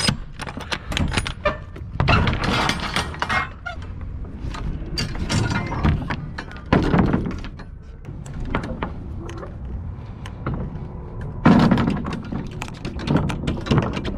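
Semi-trailer rear swing door being unlatched and swung open: the steel lock rods and handle knock and rattle in a series of separate bangs, with a few louder bursts as the door moves.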